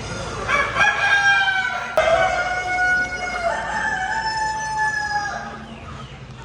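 Rooster crowing, a long drawn-out crow lasting about five seconds, with a short click about two seconds in.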